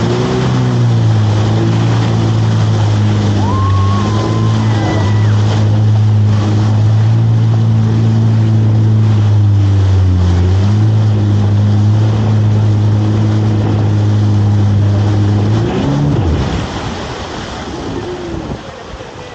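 Jet ski engine running steadily at speed, with a brief dip in revs about ten seconds in. Near the end the throttle comes off, the pitch falls and the engine sound drops away, leaving water and wind noise.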